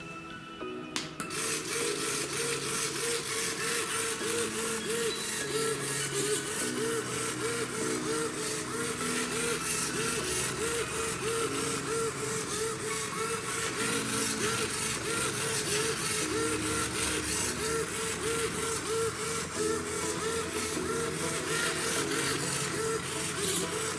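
Small electric motor of a homemade cardboard cat massager switching on about a second in and running steadily. It drives the spinning bristle rollers with a fast, even, rhythmic whir.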